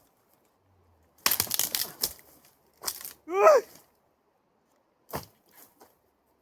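Dry wood cracking and snapping: a quick cluster of snaps about a second in, then single snaps later. About halfway through comes a brief, loud pitched call, a run of short wavering notes, which is the loudest sound here.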